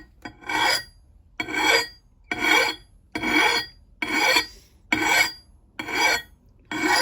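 Hand file drawn across the steel bit of an axe in slow, light, even strokes, eight in all at about one a second, with a metallic ring through each stroke.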